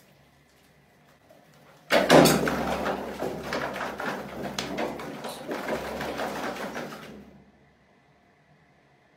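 Wire fan-guard lid of a bucket mouse trap tipping with a sudden clatter about two seconds in, dropping the mice into the plastic bucket, followed by about five seconds of rattling and scratching that fades out.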